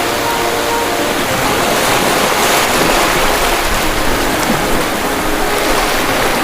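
Ocean waves breaking and washing in, a loud, continuous rush of surf that swells a little about halfway through.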